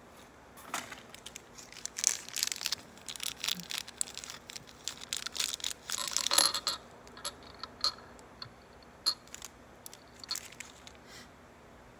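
Handling noises of a sample being swapped on a microscope stage: irregular small clicks, clinks and rustles as the chunk of silicon is put in place. The busiest clatter comes about two seconds in and again around six seconds, then it thins to a few scattered clicks.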